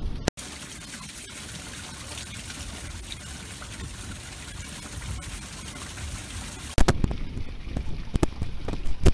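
Rubber rain boots splashing through shallow rainwater on pavement. A steady watery hiss runs through most of it, then a quick run of loud splashes starts about two-thirds of the way in.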